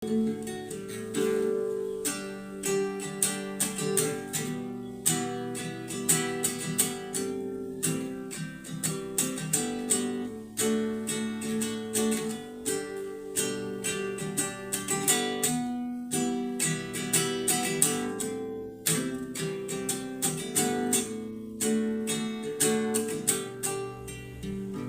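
Acoustic guitar (violão) strummed in a steady rhythm, playing the chords of a song's instrumental introduction.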